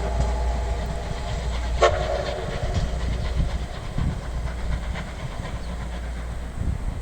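Steam locomotive whistle (the SL Ginga's C58 239) dying away as it echoes off the mountains. A brief short toot comes about two seconds in, then only the train's low rumble and faint clicks as it pulls away.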